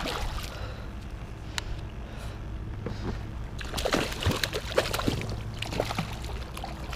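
Hooked jack crevalle thrashing at the surface beside a kayak, throwing irregular splashes of water, heavier from about halfway through as it is worked toward the net.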